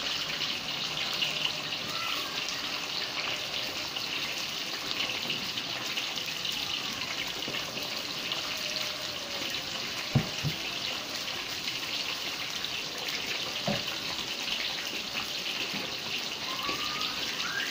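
Whole catfish deep-frying in hot oil in a wok: a steady sizzle of bubbling oil, with two brief louder pops about ten and fourteen seconds in.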